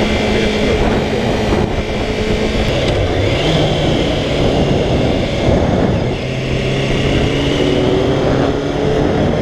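Kawasaki ZXR400's carbureted inline-four engine running as the motorcycle rides along, under heavy wind rush on the rider's microphone. The engine note rises briefly about three seconds in, then drops to a lower, steady pitch about six seconds in.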